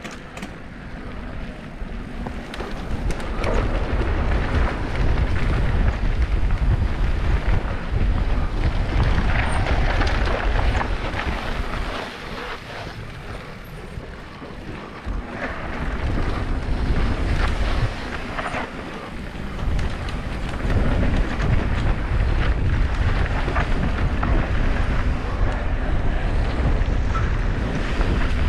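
Wind buffeting the microphone of a camera on a moving mountain bike, a heavy rumble, with the tyres rolling over the trail and the bike rattling over bumps in many short knocks. The rush swells and eases several times as the speed changes.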